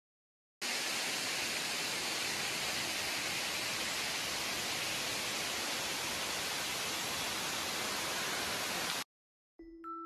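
Steady rush of falling water from a waterfall, cutting in abruptly about half a second in and cut off abruptly about a second before the end. Soft mallet-percussion music begins just before the end.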